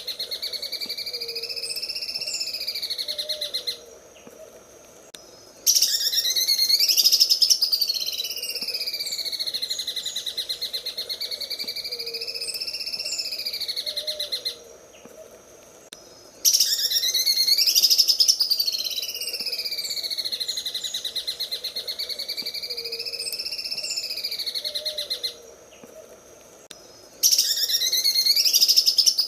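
Green leafbird (cucak ijo) singing its 'sewing machine' song: a fast, rattling run of notes that swoops up and down in pitch. It breaks off briefly three times and starts again louder, repeating the same phrase about every 11 seconds.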